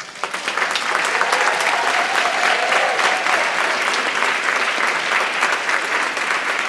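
Audience applauding: the clapping starts suddenly, swells within the first second and then holds steady.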